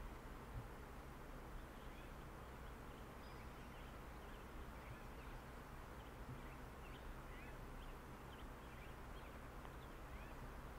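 Faint outdoor ambience: many small birds chirping throughout, over a steady low hiss.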